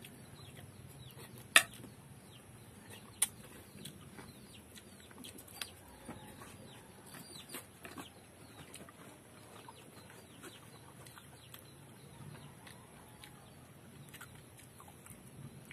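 Fresh oyster shells clicking and clinking as they are handled and picked over by hand: one sharp click about a second and a half in is the loudest, another follows a couple of seconds later, then scattered softer ticks, over a faint steady high hiss.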